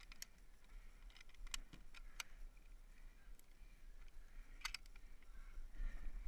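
A handful of faint, sharp clicks and taps of gear being handled on a wooden platform, two of them close together a little before the end, over a low rumble of wind on the microphone.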